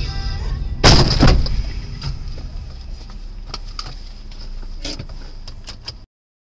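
A car striking the dashcam car, heard from inside the cabin: a loud impact in two quick hits about a second in, over a low road rumble. A few faint clicks follow under a steady high whine, and the sound cuts off suddenly near the end.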